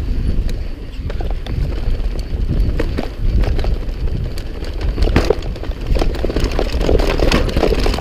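YT mountain bike ridden fast down a dirt singletrack: wind buffeting the camera microphone under tyres rolling over dirt, with rattling clicks and knocks from the bike over roots and rocks, growing busier in the second half.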